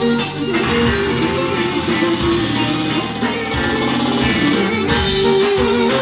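Live amplified Greek folk band playing: a woman singing into a microphone over clarinet and electric guitar.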